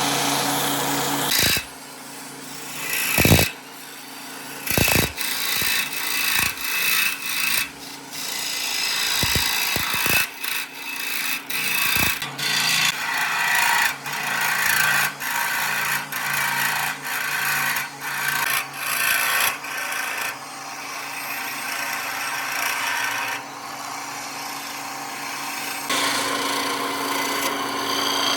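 Power tool working wood. Its motor runs with a steady hum and stops about a second and a half in. Then come short scraping strokes, roughly one a second, then a stretch of steadier working, and the motor hum returns near the end.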